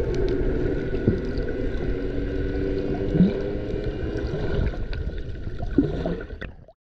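Underwater ambience: water gurgling with a steady low hum and a few short low sweeps, cutting off suddenly near the end.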